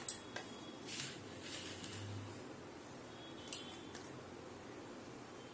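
A few light clicks and soft clinks of kitchen utensils and containers being handled, with a short rustling swish about a second in and a single ringing clink about three and a half seconds in.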